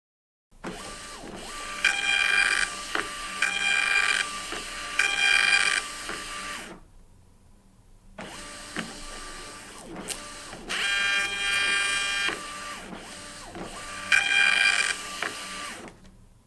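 Honeywell PX940 industrial thermal label printer printing and feeding labels: its drive motor whines in short bursts with clicks, pausing about halfway and then running again. It is printing a label, overprinting a failed one with a void pattern after its verifier rejects it, and reprinting it.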